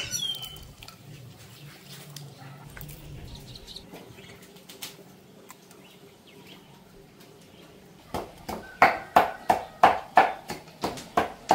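A bird chirps at the start over a quiet background. About two-thirds of the way in, a run of sharp wooden knocks begins, about three a second: a pestle pounding seasoning in a wooden mortar (pilón).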